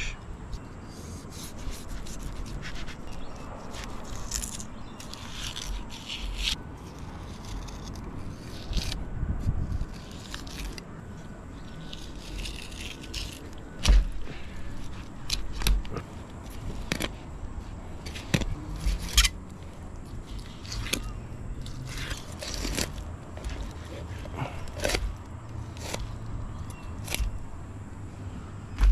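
A knife filleting a mangrove jack on a plastic cutting board: irregular short scrapes of the blade through skin, scales and along the bones, with a few louder knocks against the board.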